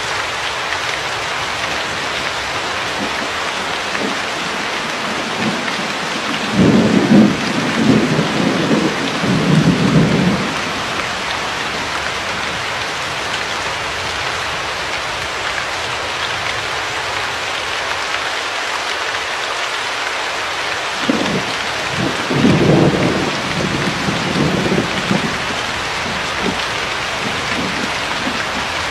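Steady heavy rain falling, with two rolls of low thunder rumbling for a few seconds each, one about a quarter of the way in and one about three quarters through.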